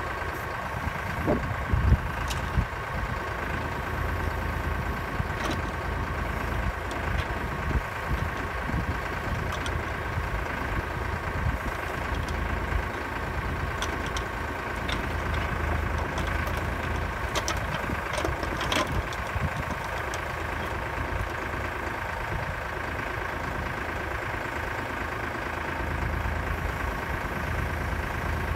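Kioti tractor's diesel engine running steadily while the log loader's crane is worked, with a steady whine over the engine and occasional sharp knocks, a cluster of them near the start.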